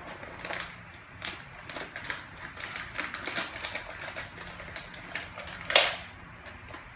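Plastic Toonies snack packet being cut open with scissors and handled: irregular crinkling and crackling of the wrapper, with one louder crackle about six seconds in.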